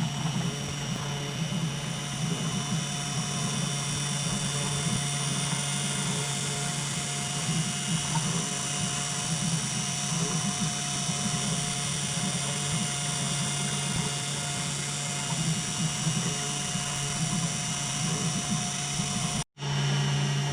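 CNC 3018 Pro router's 775 DC spindle motor running steadily as the bit carves a wooden board, a steady high whine over a low hum. The sound cuts out for an instant near the end, then resumes.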